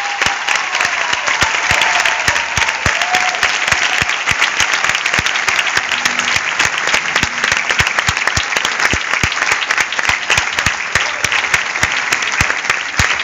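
Concert audience applauding steadily, many hands clapping at once, for an orchestra that has just finished its piece.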